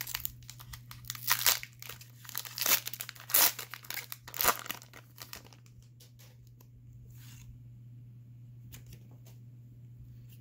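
Foil wrapper of a Pokémon Shining Fates booster pack torn open and crinkled by hand: a run of loud ripping, crinkling bursts over the first five seconds or so. Faint handling of the card stack follows.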